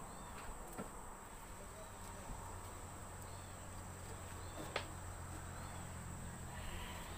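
Insects giving a steady, high-pitched drone, with faint short chirps and one sharp click about two-thirds of the way in.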